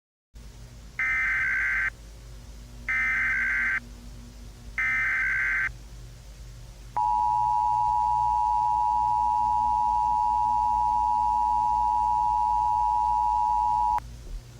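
Emergency Alert System tones: three short bursts of data tones, each about a second long, which make up the SAME header, then the two-tone attention signal held steady for about seven seconds, over a low hum.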